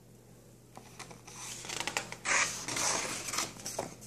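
Pages of a paper picture book being handled and turned: a soft rustle and brushing of paper with a few light clicks, loudest about two to three seconds in.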